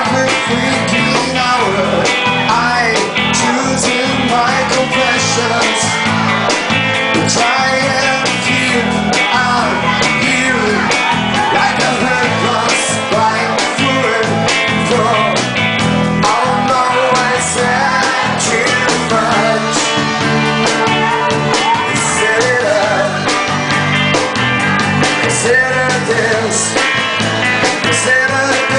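A live rock band playing, with electric guitar, drums and a singer.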